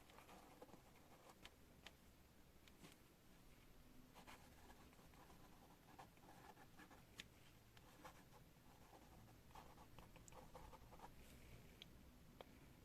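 Pen writing on paper: faint scratching strokes and small ticks, coming in short bunches with brief pauses between them.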